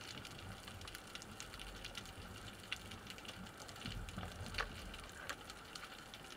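Faint underwater ambience: an irregular crackle of scattered sharp clicks over a low hiss, heard through water.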